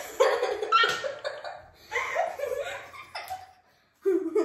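Laughter and wordless vocal noises from a woman and children, in short bursts, breaking off into silence about three and a half seconds in before a short held vocal sound.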